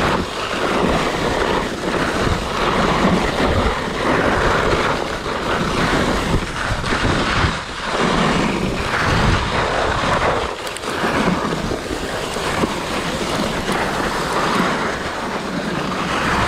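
Skibob skis sliding fast over packed snow, a steady rough hiss that swells and dips, mixed with wind buffeting the microphone.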